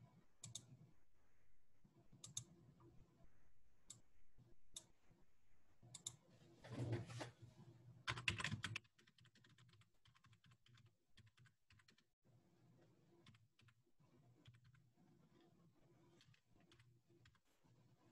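Faint computer keyboard typing and clicks, with a louder spell of clattering keystrokes from about six and a half to nine seconds in.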